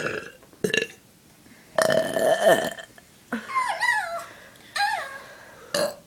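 A person burping: one long, loud, pitched burp about two seconds in, lasting about a second, with shorter throat and voice sounds before and after it.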